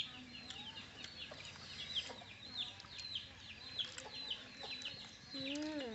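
Chicks peeping: a steady run of high, falling cheeps, about three a second. Near the end a person makes a short hum.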